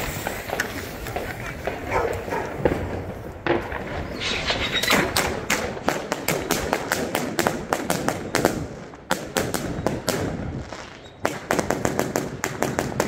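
A 100-shot 25mm compound fireworks cake firing: rapid, irregular volleys of launch thumps and bursting reports, denser from about a third of the way in, with two short lulls.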